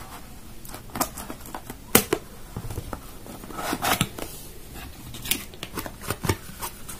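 A sealed cardboard box being cut open and its lid lifted: scattered sharp snips and clicks, with a longer paper-on-cardboard scrape about four seconds in.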